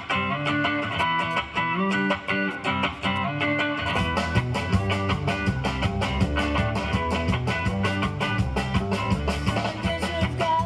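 Instrumental passage of a rock song led by guitar, with a steady beat. About four seconds in, the arrangement fills out with heavier bass and cymbals.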